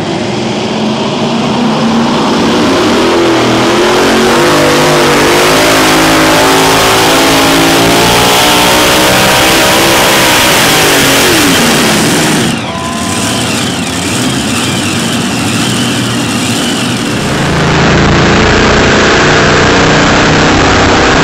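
Multi-engine pulling tractor's supercharged engines running at full throttle during a pull, the pitch climbing as it goes. The sound dips briefly about twelve seconds in, then the engines are loud again.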